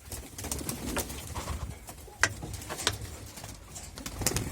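Baku pigeons cooing, with scattered sharp clicks and one louder click a little over two seconds in.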